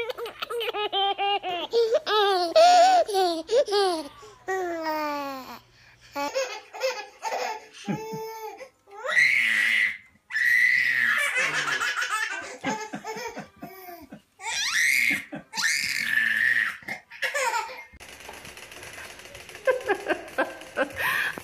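Babies laughing and squealing in short bursts, with high-pitched shrieks in the middle stretch and quieter sounds near the end.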